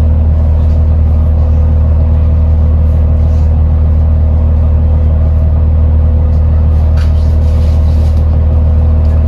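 King Long bus running at a steady speed, heard from inside the passenger cabin: a loud, even drone with a strong low hum.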